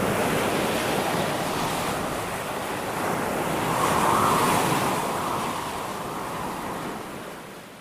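Sea waves washing on a beach, swelling to a peak about four seconds in, then fading away near the end.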